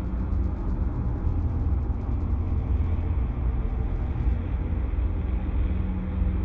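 A steady low rumbling drone, with fast, even high ticks over it that stop about halfway through.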